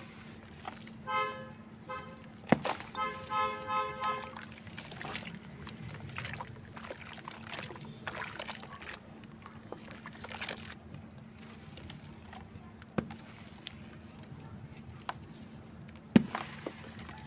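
Hands crumbling chunks of dry red dirt and cement into a basin of water and kneading the wet paste, with sloshing water. A pulsing, beeping tone sounds twice in the first few seconds, and a few sharp knocks stand out, the loudest near the end.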